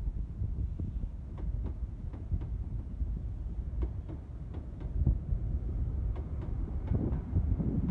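LNER InterCity 125 Mark 3 coaches rolling past, wheels clicking over rail joints over a low rumble. The rumble builds near the end as the Class 43 diesel power car draws near.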